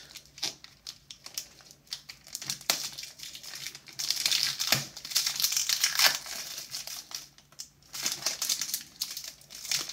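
Pokémon Ancient Origins booster pack's foil wrapper crinkling and rustling as hands work at it, a pack that is hard to open. Soft, scattered crinkles at first, louder and denser from about four seconds in.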